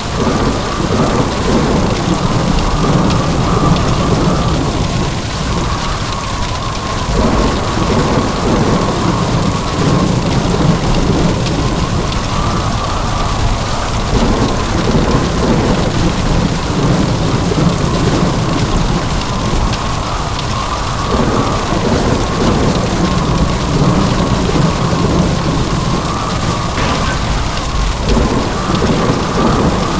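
Heavy rain pouring with rumbling thunder, a steady downpour that swells and eases in a pattern repeating about every seven seconds.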